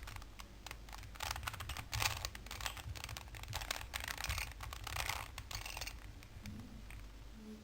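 Rubik's Cube faces being turned by hand in quick succession, the plastic layers clicking and scraping as they rotate. The clicking thins out after about six seconds.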